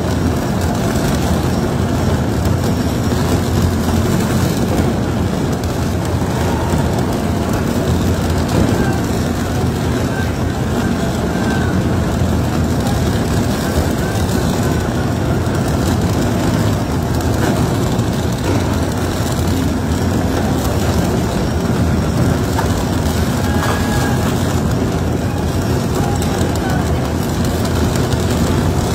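Tunnel boring machine's cutterhead grinding through the rock face just before breakthrough, a steady, deep grinding noise with water hoses hissing against the rock.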